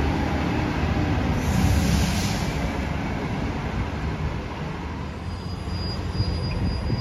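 Diesel engines of city transit buses running as they pull through the terminal, a steady low rumble. A brief hiss of air comes in about a second and a half in.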